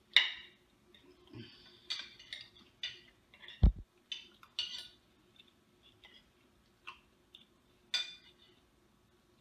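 Cutlery and dishes clinking: scattered short taps and clatters of utensils against plates, with one dull, heavy thump a little past the middle.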